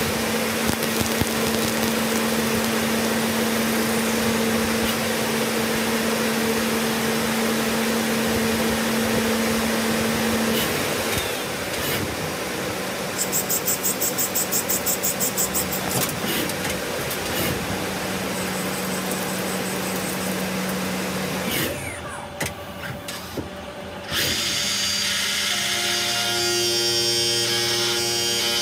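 Tsugami M08SY-II CNC lathe machining a brass part: the spindle and cutting tools run with a steady tone over cutting noise, with a fast pulsing for about three seconds around the middle. After a short quieter dip near the end, a milling pass starts with several steady tones.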